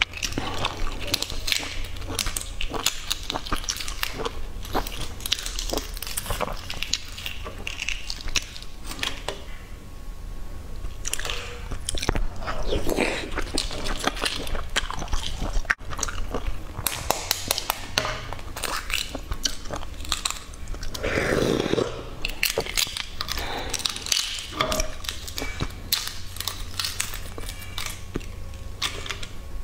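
Brown eggshells being cracked and peeled by hand: a dense run of small cracks, clicks and crackles as the shell breaks and is pulled away.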